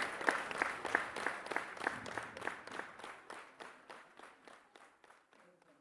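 Theatre audience applauding at the end of a show, individual claps standing out at about three a second, fading steadily until the applause dies away near the end.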